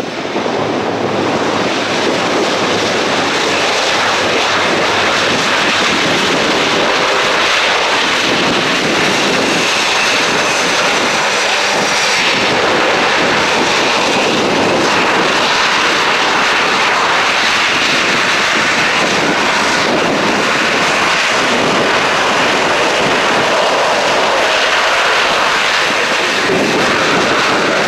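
Airbus A400M's four Europrop TP400-D6 turboprop engines, with their eight-bladed propellers, running loud and steady as the aircraft rolls along the runway.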